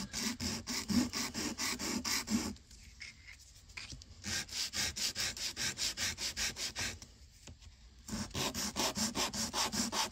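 Balsa wood rocket fin rubbed back and forth on sandpaper in three quick bouts of about five strokes a second, sanding off the little nubs left on its edge from the die-cut sheet.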